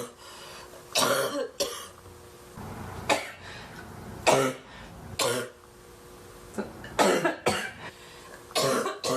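A woman coughing in repeated fits, about a dozen loud coughs in clusters of one to three with short gaps between, brought on by big bong hits.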